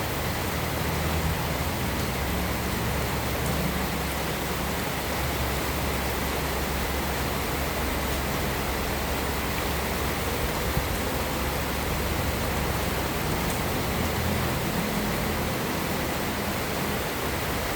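Heavy rain falling steadily, an even dense hiss with a low rumble underneath, and a few faint crackles from a fireplace.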